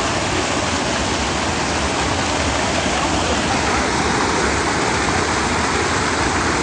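Brown floodwater of a river in spate pouring over a low concrete causeway and cascading down its side in foaming rapids: a steady, loud rush of water.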